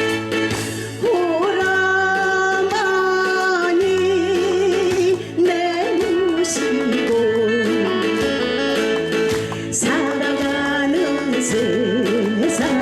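A singer performing a Korean folk-style song, holding long notes with a wavering vibrato, over a backing band with guitar.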